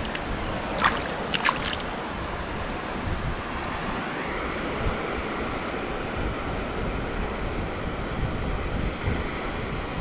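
Sea surf washing steadily on a rocky shore, with wind buffeting the microphone. A few small water splashes or drips come about a second in.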